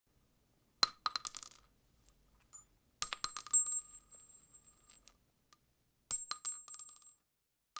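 Spent .223 rifle cartridge casings dropped onto asphalt, three separate drops. Each gives a sharp metallic ping followed by a quick run of bouncing clinks and a high ringing tone that dies away within about a second.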